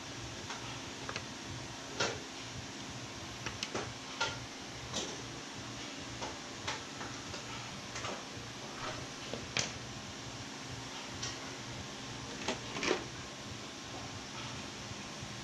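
White plastic armor pieces being handled on a worktable: irregular light clicks and knocks as the plastic shells are picked up, turned over and set against each other, over a steady background hum.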